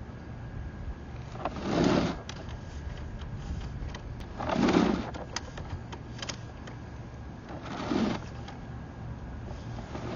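Steady low machine hum, broken by three short noisy rushes about three seconds apart, with a few light clicks in between.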